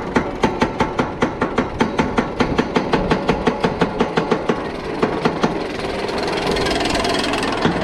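Anti-rollback dogs of an Intamin inverted roller coaster train clacking along the lift-hill ratchet, about five clacks a second. The clacking stops about five and a half seconds in as the train crests the lift, leaving a steady rushing noise.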